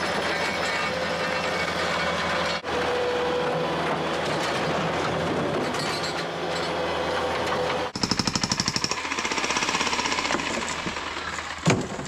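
Bobcat compact track loader's diesel engine running steadily as it works. About eight seconds in this gives way to a jackhammer: a rapid, even hammering as it breaks up concrete.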